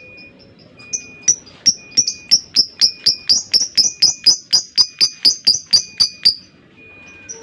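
Lovebird calling in a long run of sharp, high chirps, about three to four a second, stopping near the end: the long repeated call lovebird keepers call ngekek.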